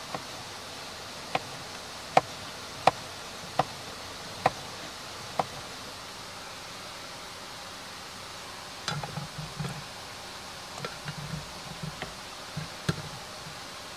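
Seven sharp taps, less than a second apart, over a steady faint hiss. About nine seconds in comes a cluster of soft knocks and clatter, then a last sharp tap near the end.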